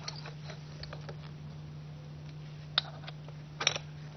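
Light metal clicks and knocks as a leg pin is pulled and the easel leg of an Arizona Vortex rescue tripod is slid out. There is one sharp click nearly three seconds in, then a quick cluster of clicks about a second later.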